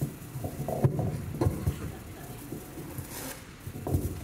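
Handling noise of a headset microphone being adjusted on the wearer's ear: irregular rubbing and soft knocks picked up directly by the mic.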